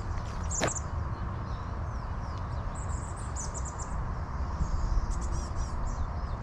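Small songbirds chirping and twittering in a few short, high-pitched bursts, heard over a steady low rumble.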